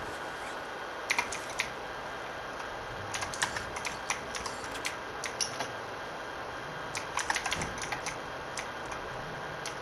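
Computer keyboard keys clicking irregularly, a few keystrokes at a time in short clusters, over a steady background hiss.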